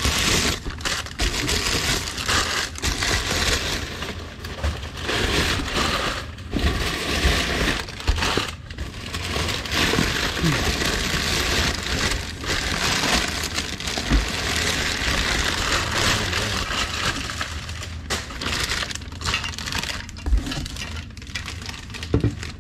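Crumpled brown kraft packing paper rustling and crinkling in a cardboard box as hands dig through it, in uneven handfuls with short pauses, with a few dull knocks.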